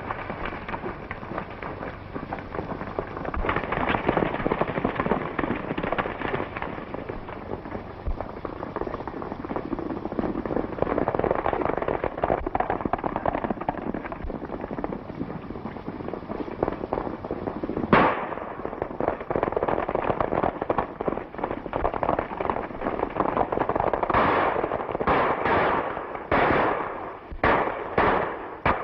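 Galloping horses and gunfire on an old film soundtrack: a dense clatter of hooves with scattered shots, one sharp shot about eighteen seconds in and a quick string of shots near the end.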